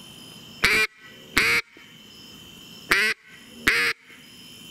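Single-reed Arkansas-style Echo duck call blown in four short mallard hen quacks, two pairs, each note breaking from a higher to a lower pitch. The crack in each note sits too high, which the caller is trying to bring down.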